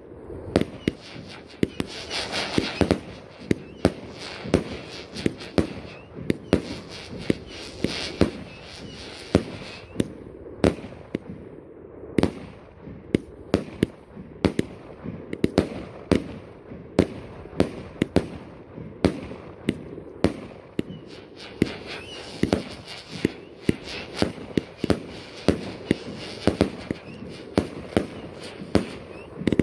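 A 100-shot firework cake firing shot after shot, about two sharp reports a second, as each shell launches and bursts. At times, a little way in and again near the end, a crackling hiss from the bursting stars runs under the shots.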